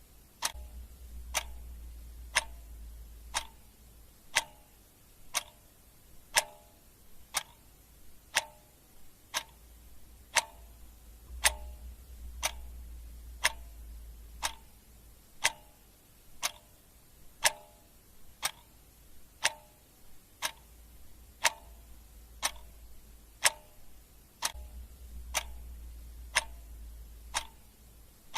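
Mechanical clock ticking steadily, about one tick a second. A faint low hum comes and goes underneath.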